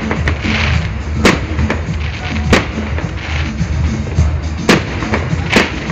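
Fireworks display: about five sharp bangs of bursting shells, roughly one every second or so, over a continuous rumble and crackle, with music playing underneath.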